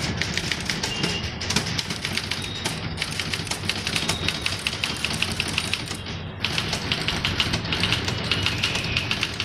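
Typewriter keys struck in a fast, even run of clicks, a touch typist practising at speed, with a short pause about six seconds in.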